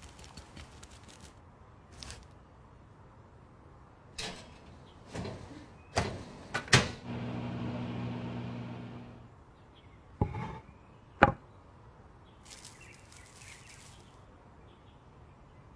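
Kitchen work sounds: a series of sharp knocks and clicks as things are set down and handled, with a steady low electric motor hum for about two seconds in the middle that then dies away.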